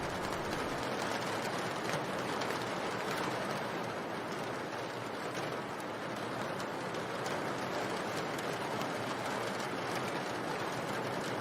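Steady rain: a dense, even hiss with faint scattered drop taps.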